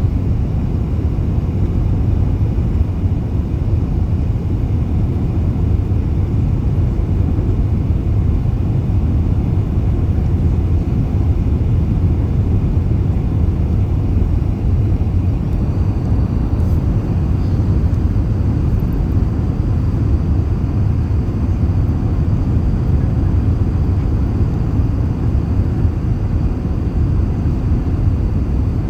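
Steady low rumble of a four-engine Airbus A380 airliner, an even roar of engines and airflow with no change in level, and a faint high tone coming in about halfway through.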